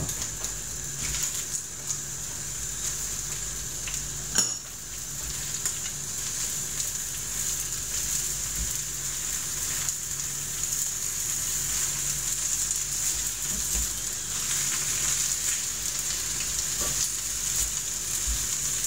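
Spinach sizzling steadily in olive oil in a non-stick frying pan as it wilts. A single sharp click comes about four seconds in.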